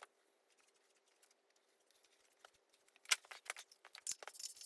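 About three seconds of near silence, then a few sharp metallic clicks and clinks from hand work on the engine, the first the loudest.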